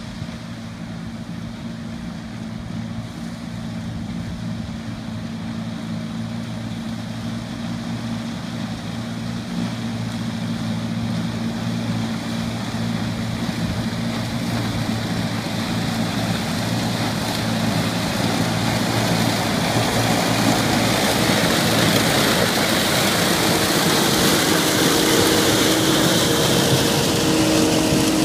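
ROPA self-propelled sugar beet harvester running while lifting beets. A steady engine drone comes with a growing rush of machinery noise, and the whole sound gets steadily louder as the machine comes closer.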